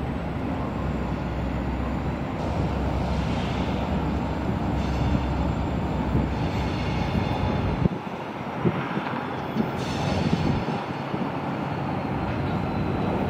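EMD GP60 diesel locomotive's 16-cylinder 710 engine running as it moves slowly along with a string of cars, with steady rumble and faint high-pitched squealing now and then from the wheels on the rails.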